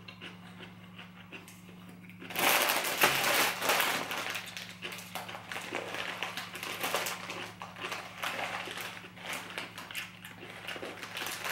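Crinkly plastic wrapping of an Indomie instant-noodle multipack rustling as it is picked up and handled. It starts about two seconds in and keeps crackling in uneven spurts.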